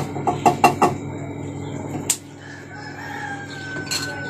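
Chickens calling: a hen clucking in a quick run of calls during the first second, then a rooster crowing, one long drawn-out call near the end. A single sharp knock comes about two seconds in.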